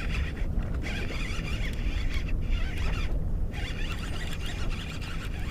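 Baitcasting reel being cranked to bring in a hooked fish, a rapid scratchy winding, over a steady low wind rumble on the microphone.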